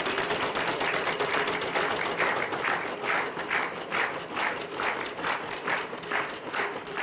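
Game-show prize wheel spinning, its pointer clicking against the pegs on the rim. The clicks start rapid and slow steadily to about three a second as the wheel winds down.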